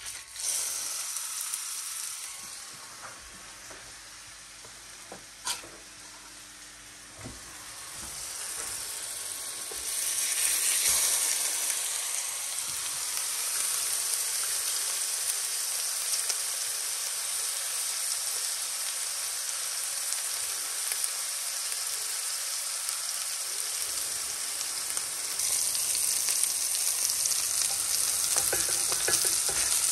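Wild boar patties sizzling in a stainless steel frying pan, with a couple of short knocks early on. The sizzle steps up louder about ten seconds in as the second patty heats, and a little more near the end.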